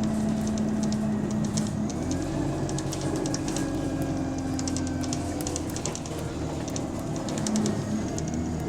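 Bus engine running under way, noisy from an exhaust leak, with light rattling and clicking from the bus body. The engine note shifts about two seconds in.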